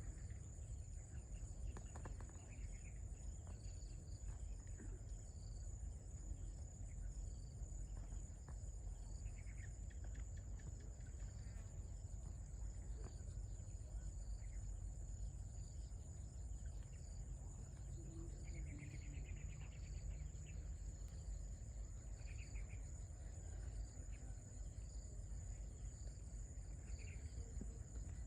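A steady high-pitched insect chorus runs throughout, with scattered brief chirps and a constant low rumble underneath.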